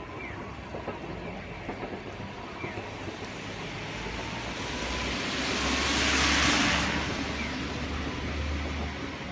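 A car passing on a wet road: its tyre hiss and low engine rumble swell to a peak about six seconds in, then fade, over a steady background hiss of rain.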